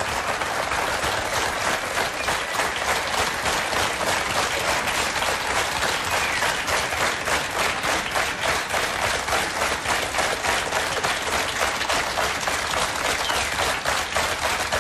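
Studio audience applauding, the clapping falling into an even beat of about three claps a second.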